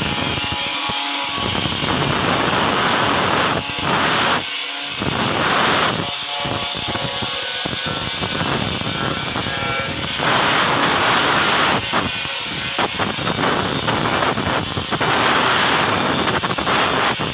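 Stainless-steel metalworking noise: a loud, steady hiss with a harsh buzz, with short breaks in the low end around 4, 6 and 12 seconds in.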